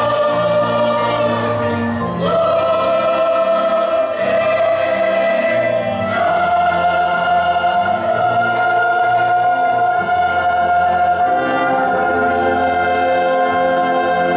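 Mixed church choir singing a hymn on long held chords, accompanied by brass and strings; the chord changes about two seconds in and again about six seconds in.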